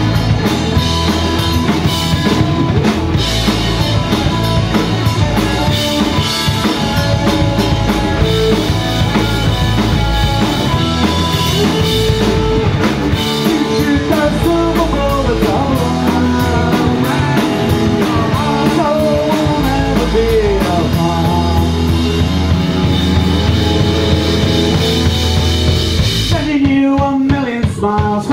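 Live rock band playing loud: electric guitars, bass guitar and drum kit, with singing. About two seconds before the end the drums and bass stop, leaving guitar and voices, and then the drums come back in.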